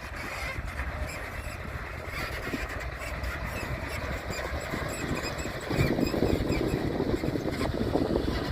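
Heavy construction machinery working: engine noise that grows louder about six seconds in.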